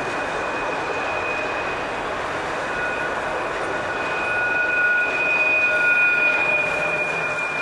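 Freight train cars rolling past with a steady rumble and a thin, steady high-pitched wheel squeal over it, growing a little louder past the middle.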